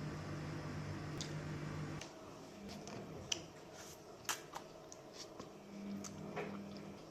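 Chewing and mouth sounds of eating: a series of sharp clicks and short wet smacks, over a low steady hum that stops about two seconds in.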